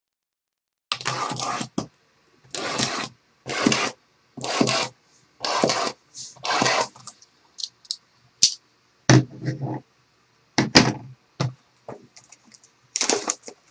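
Shrink-wrapped 2014 Topps Tier One baseball card boxes being lifted off a stack and handled. The plastic wrap crinkles and scrapes in short bursts about once a second, with a few sharp taps in the second half.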